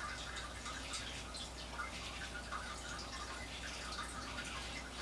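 Faint scattered small ticks and light wet dabs of a watercolour brush being worked in a paint pan and on paper, over a low steady hum.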